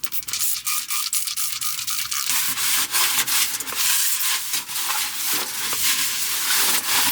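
Rasping scraping and rubbing noise, with many small clicks throughout.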